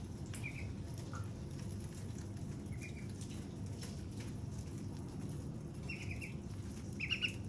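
A young white duck peeping: short, high cheeps in small bursts, the loudest cluster near the end, with light clicks of bills pecking at a watermelon wedge over a steady low hum.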